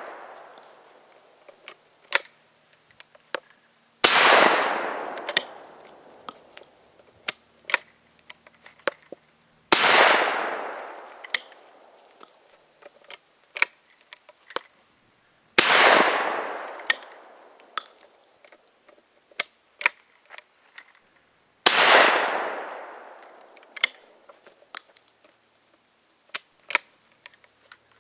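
Rossi 12-gauge single-shot break-action shotgun fired four times, about six seconds apart, each blast followed by a long fading echo. Between shots come small sharp clicks and clacks as the break action is opened, the empty shell cleared and a new one loaded and closed.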